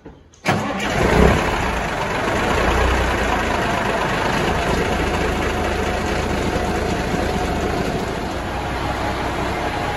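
Peterbilt 359's diesel engine starting: it catches about half a second in, peaks briefly, then settles into a steady idle.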